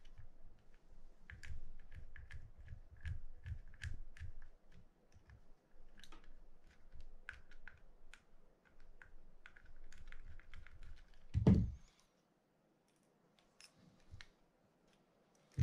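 Mini screwdriver turning out the small screws that hold the bridge on a Penn Senator 112H reel's side plate: a run of light clicks and scrapes of metal on metal with soft handling knocks, and one louder knock about eleven seconds in. It goes nearly quiet for the last few seconds.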